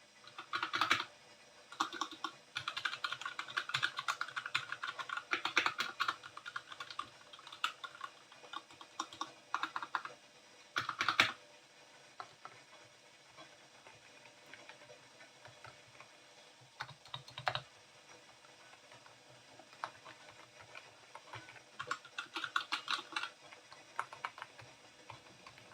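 Typing on mechanical keyboards fitted with Gateron Brown tactile and Skyloong Glacier Silent linear switches. Fast runs of keystrokes fill the first eleven seconds, followed by a quieter stretch of sparse key presses, then another quick run of typing near the end.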